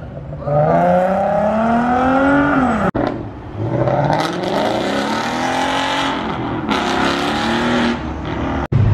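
Ford Mustangs accelerating hard from a standstill, engine pitch climbing steeply as they rev out. The sound breaks off abruptly about three seconds in and near the end, where one clip gives way to the next.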